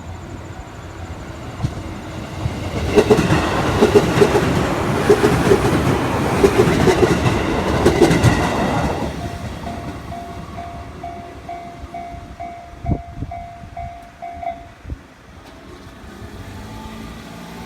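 A JR East 205 series electric train passes at a level crossing, its wheels clicking rhythmically over the rail joints for about six seconds. As the train clears, the crossing's warning bell rings in steady pulses a little over twice a second, then stops abruptly.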